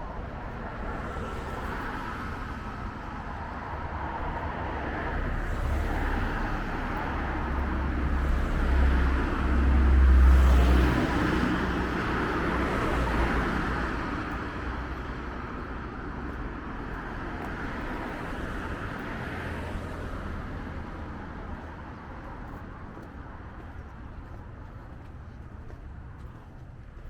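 Road traffic going by, with one vehicle swelling up and fading away, loudest about ten seconds in with a deep rumble.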